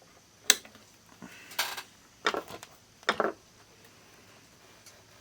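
A sharp click, then three short rattling, scraping bursts of hard plastic and metal being handled: a multimeter and its test leads being moved about on a workbench.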